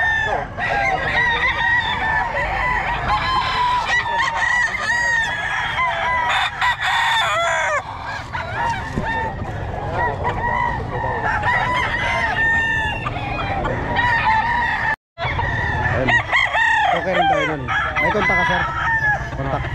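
Many roosters crowing over one another, with clucking, in a dense overlapping chorus; the sound cuts out for a split second about fifteen seconds in.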